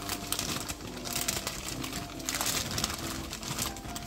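Green beans tipped from a plastic bag into a pot of hot water, with the bag rustling and the beans splashing in irregularly.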